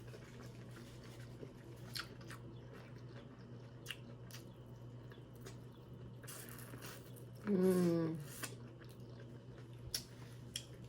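Close-up mouth sounds of eating seafood: soft chewing with a few sharp clicks and cracks, like crab shell being handled. A short rushing sound about six seconds in is followed by a brief wordless hum from the eater, the loudest sound here.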